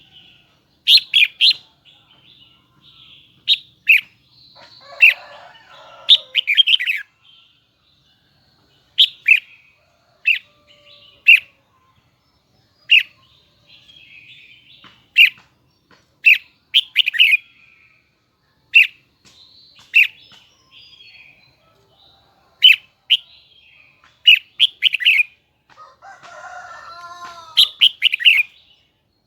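Red-whiskered bulbul singing: short, bright, loud phrases of a few quick notes, repeated every second or two with brief pauses. Near the end a softer, lower warbling call runs for a couple of seconds.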